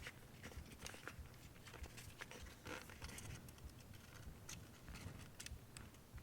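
Faint, scattered light clicks and small scrapes of hands working tiny screws and metal mounting parts in an open laptop.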